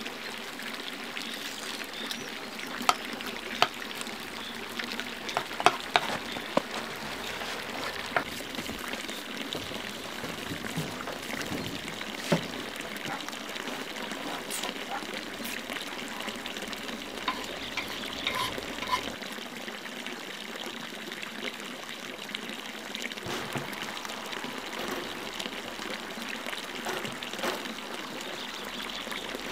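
Steady running water of a mountain stream, with scattered sharp clicks and knocks, the loudest in the first several seconds.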